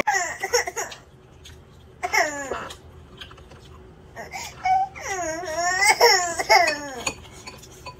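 A toddler's voice: a few short cries near the start, then she breaks into drawn-out, wavering crying from about four and a half seconds in. It is upset, aggrieved crying.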